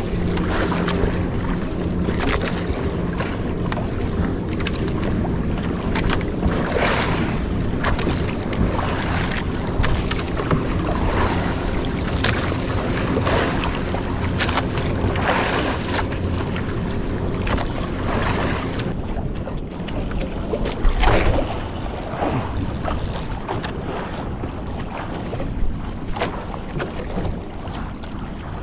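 Small fishing boat at sea: wind buffeting the microphone and water slapping and splashing against the hull in repeated surges, over the steady low hum of the boat's engine.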